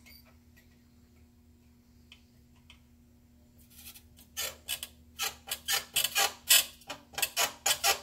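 Faint steady hum of a pistol-grip soldering gun. From about halfway, a run of sharp clicks and scrapes, roughly two a second, as a snap-in capacitor is worked loose from a circuit board through molten desoldering alloy.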